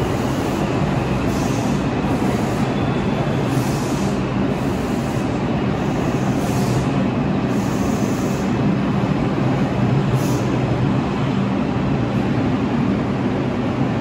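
New York City subway train running in an underground station: a steady rumble of wheels and traction motors with a low hum, unchanging throughout.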